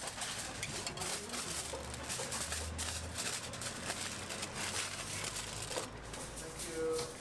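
Aluminium foil crinkling and crackling as a hamburger is wrapped in it, with a brief steady tone near the end.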